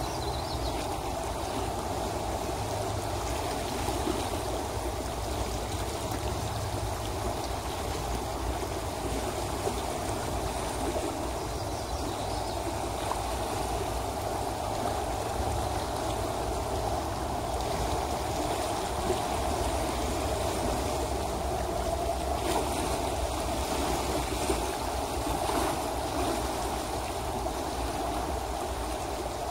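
A shallow river running fast over a riffle: a steady rushing, babbling flow of water, with a low rumble underneath.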